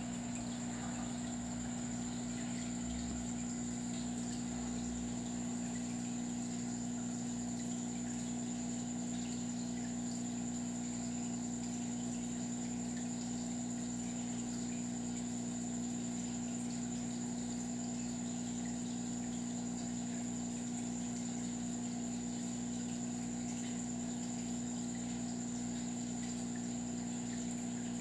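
Aquarium water pump running with a steady low electric hum over a soft, even hiss of moving water, and a thin high whine above it.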